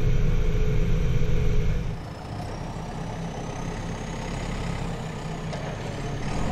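JCB backhoe loader's diesel engine running as it drives, loud and close from inside the cab at first. About two seconds in it drops to a quieter sound heard from outside the machine, with a faint high whine.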